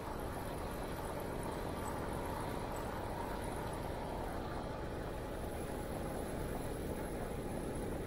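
Steady rushing noise of wind buffeting a moving camera's microphone, with tyres rolling on an asphalt bike path.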